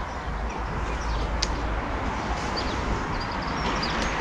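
Outdoor background: a steady low rumble with faint bird chirps now and then, and one short click about one and a half seconds in.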